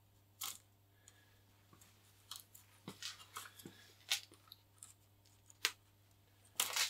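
A small knife scraping and cutting away an old repair on a composite model glider wing. It makes a string of short, sharp scrapes and clicks spaced irregularly, thickening into a quick cluster near the end.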